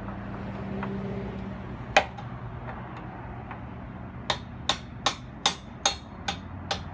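Hammer blows knocking out the brake shoe link pins of a windmill's wooden brake wheel. One sharp blow comes about two seconds in, then a steady run of blows, about two and a half a second, from around four seconds on.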